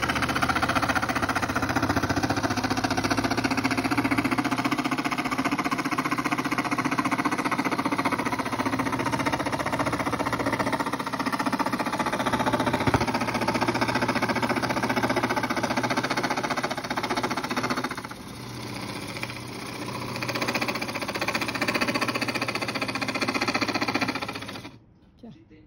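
Electric jigsaw sawing a curved line through a sheet of MDF, running steadily under load. The sound eases off for a couple of seconds about three-quarters of the way through, picks up again, then cuts off shortly before the end.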